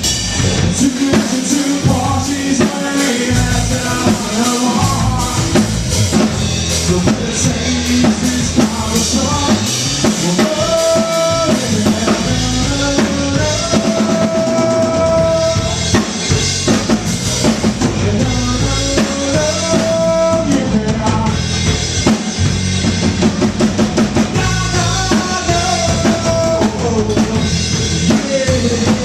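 Live rock band playing an instrumental passage of the song, with a drum kit beat of bass drum and snare under held pitched notes.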